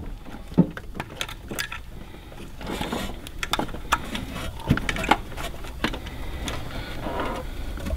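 Scattered small plastic clicks and rattles of hands working a wiring connector loose from the coil under an HEI distributor cap, a few sharper clicks among them, over a faint steady low hum.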